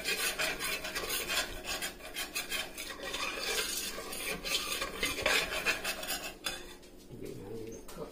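Spoon stirring and scraping around the inside of a stainless steel pot in quick, repeated strokes, with a faint sizzle. The stirring stops about six and a half seconds in.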